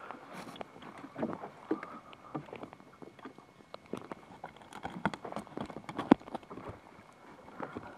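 Irregular knocks, clicks and clatters of the fish, line and gear being handled aboard a small wooden fishing boat, with one sharper knock about six seconds in.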